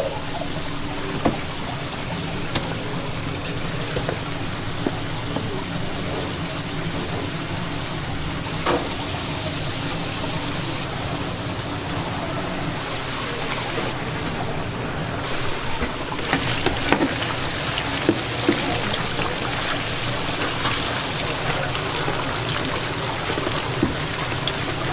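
Hot oil in a deep fryer sizzling steadily as battered tempura pieces fry. The sizzle grows brighter and louder about sixteen seconds in, with scattered light clicks.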